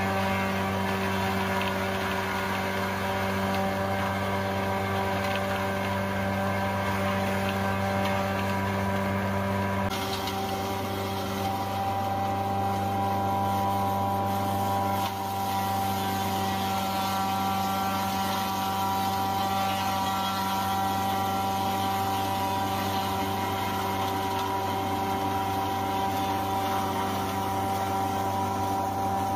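Electric grass grinder running steadily with a hum, grinding fresh leafy branches into fine green mash as they are fed in. Its sound shifts slightly about ten seconds in.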